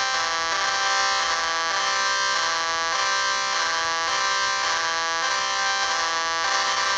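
Buzzy electronic alarm tone of a mock Emergency Alert System alert, switching back and forth between two pitches about once a second.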